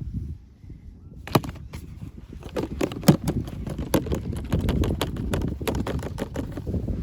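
Toy packaging being handled: irregular clicks, taps and rustling of plastic and cardboard, busier from about a second in, with a few sharper snaps.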